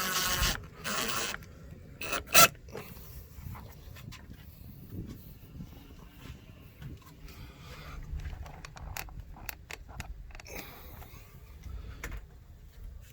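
Hand-work noises from fitting a doorbell mount: two short scraping bursts at the start, a sharp knock about two seconds in, then scattered light clicks and scraping.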